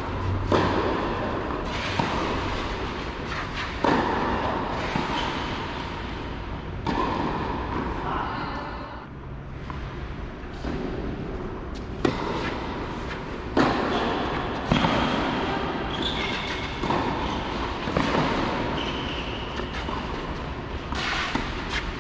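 Tennis ball struck by rackets during a rally and a serve on an indoor clay court: a string of sharp pops about every one to two seconds, with a pause about halfway through.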